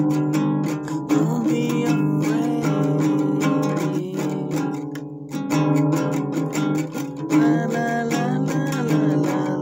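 Strummed acoustic guitar accompaniment with a young man singing over it; the music thins out briefly about four to five seconds in.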